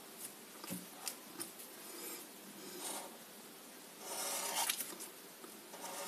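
Black marker pen drawing on paper: a scratchy stroke about four seconds in as a line is drawn, another near the end, and a few light taps and rubs before it.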